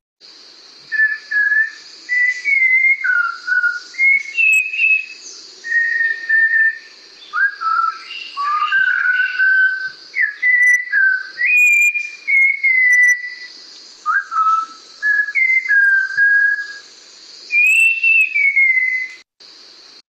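Recorded song of a Malabar whistling thrush: a long run of clear whistled phrases, like a child whistling, with notes that glide and jump up and down in pitch, over a steady high hiss.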